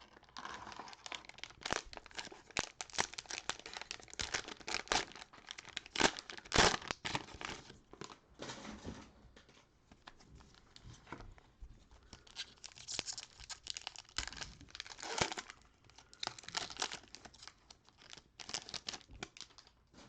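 Plastic cellophane wrapper of a pack of basketball trading cards being torn open and crinkled. The crackling comes in dense bursts through the first nine seconds and again from about twelve seconds on, with a quieter gap between.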